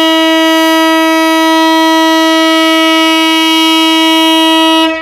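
Air horn of an EMD GT42ACL diesel locomotive sounding one long, loud, steady note that cuts off near the end, a signal that the train is about to depart.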